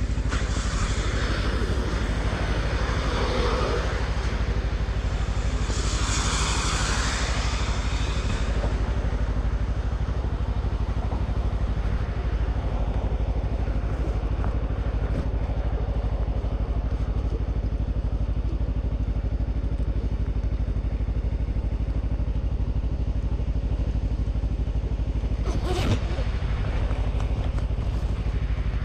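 Vehicle engine running at a steady drone while driving, with a rushing hiss twice in the first eight seconds and a sharp click about 26 seconds in.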